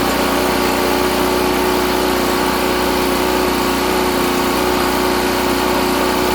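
Small gasoline engine of a previously flooded portable generator running steadily at a constant speed.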